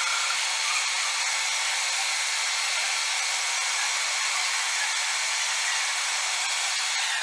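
Metal lathe running at a steady speed with a rectangular block whirling in its four-jaw chuck: a steady high whine over a rushing noise. It starts to wind down at the very end.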